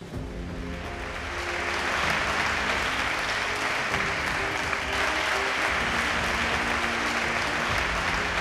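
Large audience applauding, the clapping swelling over the first couple of seconds and then holding steady, with music playing underneath.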